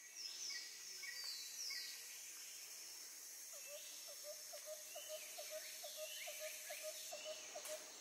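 Tropical rainforest ambience: a steady high insect hiss with scattered short, falling whistled bird calls. From about three and a half seconds in, a lower call repeats rapidly, about three times a second, for around four seconds.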